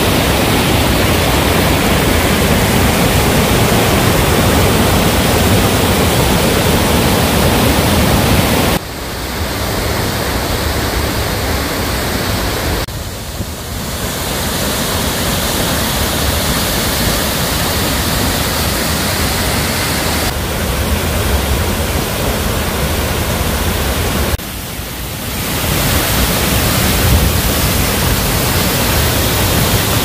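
A waterfall and the mountain stream below it rushing steadily, a dense wash of water noise. The level dips and shifts a few times, about 9, 13 and 25 seconds in.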